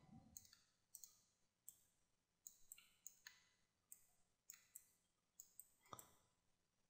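Faint, irregular clicks from working a computer mouse and keyboard, about two a second, with one a little louder about six seconds in.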